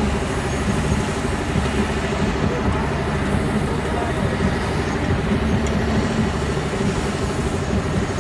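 Diesel engine of heavy earthmoving machinery running steadily: a continuous low rumble with a steady droning tone over it.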